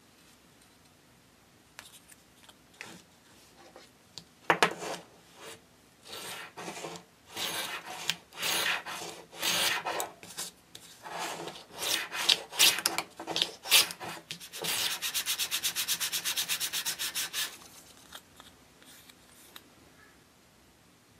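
Hand-working of the edge of a small wood-backed dollhouse roof piece on a wooden block. It goes as scraping, rubbing strokes of a shaving or abrading tool, at first about one a second. Near the end they become a quick, even run of about four to five strokes a second.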